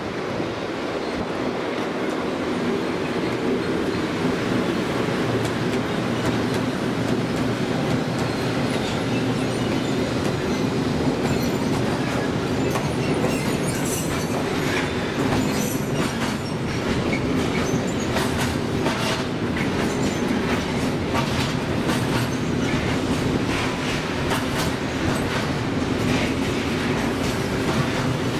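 Long freight train of covered wagons rolling past at steady speed, a continuous rumble of wheels on rail. From about halfway on, sharp clacks come thick and fast as the wheels run over the rail joints.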